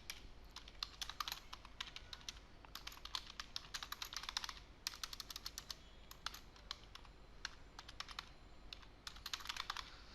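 Computer keyboard typing: irregular runs of quick key clicks with short pauses between them, as text is entered into a form.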